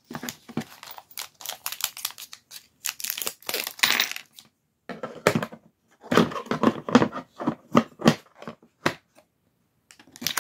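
Packaging and a plastic tool case being opened and handled: irregular clicks, rattles and crinkling, in short clusters with brief pauses.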